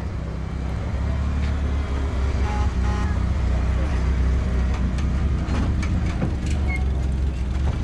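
Low, steady hum of a zoo visitor tram's tow vehicle moving slowly past at close range.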